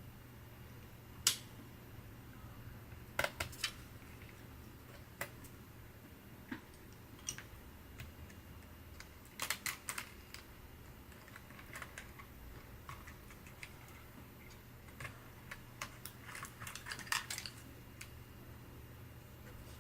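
Scattered sharp clicks and taps of small laptop parts and tools being handled during disassembly, some single and some in quick little clusters.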